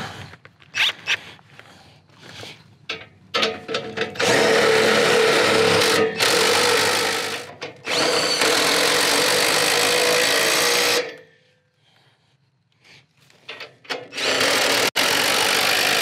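Harbor Freight Hercules Super Duty impact gun hammering in four runs of one to three seconds each, with short pauses between them. A few light clicks and knocks come before the first run.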